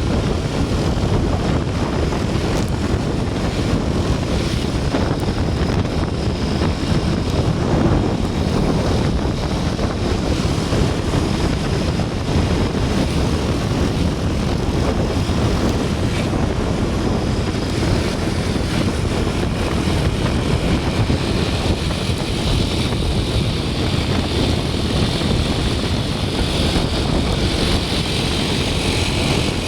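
Steady vehicle engine and road rumble, with a higher hiss joining in over the last several seconds.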